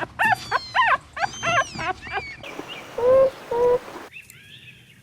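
A puppy yipping and whimpering: a quick run of short, high yips for about the first two seconds, then a couple of shorter calls after a pause.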